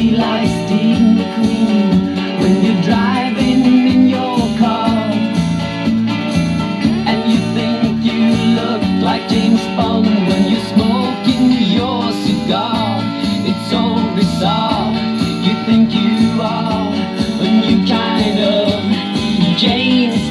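A 45 rpm vinyl single playing on an Ultra music centre's BSR record changer: a pop song with guitar and a singing voice.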